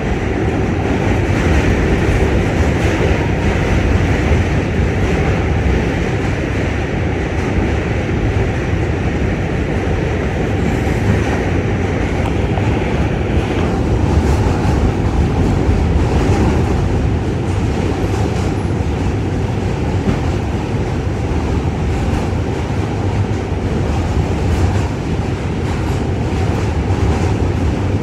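An R46 subway car running along the line, heard from inside the car: a steady rumble of wheels on the rails and the car in motion.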